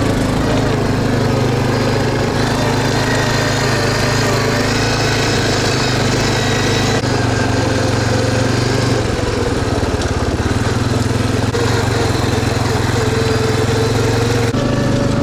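Small engine running steadily at an even speed, dipping slightly in loudness about nine seconds in.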